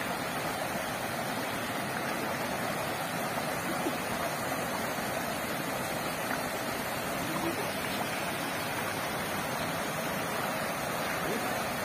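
Shallow stream water rushing steadily over a small spillway and rocks: an even, unbroken rush.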